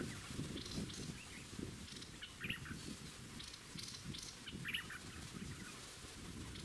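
Bulbuls giving short chirping calls a second or two apart around a decoy cage trap, over a steady low rumbling noise.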